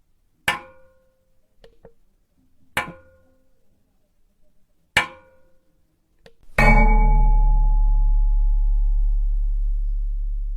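Metal struck three times, about two seconds apart, each a sharp clang that rings briefly. Then a heavier metal hit, the loudest, rings on with a deep low hum that fades slowly.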